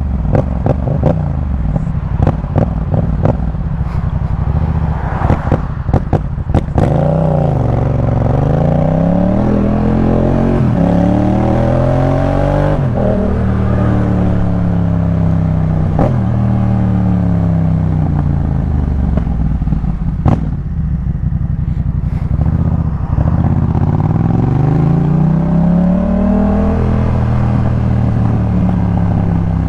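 Yamaha MT-07's parallel-twin engine breathing through a Jeskap K4 full aftermarket exhaust, the bike accelerating again and again with the pitch climbing and dropping at each gear change. A run of sharp pops and clicks sounds through the first several seconds.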